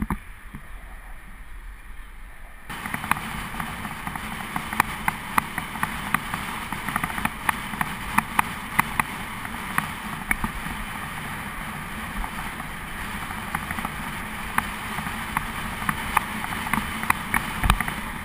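Riding noise from a moving bicycle: wind rushing over the microphone with frequent small rattles and clicks from the bike and its mount over the road surface. About three seconds in it turns louder and busier with rattles.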